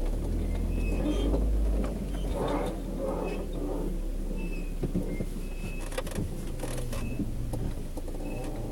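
Car moving slowly with low road and body rumble, and short high creaks coming again and again at irregular intervals from the rear suspension, which the owner cannot place but likens to a spring.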